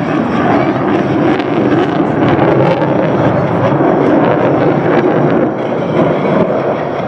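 Jet aircraft flying a display, their engines a loud, steady noise.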